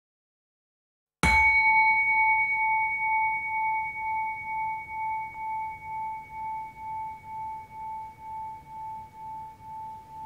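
A single struck bell-like tone about a second in, ringing on with a slow pulsing, about twice a second, as it gradually fades.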